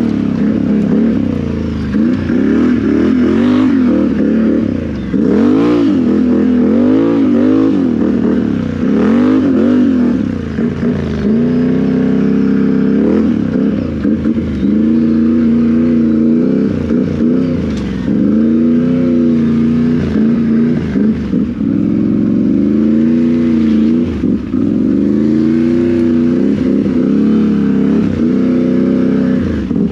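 Can-Am Renegade XMR 1000 ATV's V-twin engine, breathing through RJWC dual exhausts with a Monster Tune, revving up and down as it is ridden. The throttle rises and falls every second or two, with steadier pulls later on.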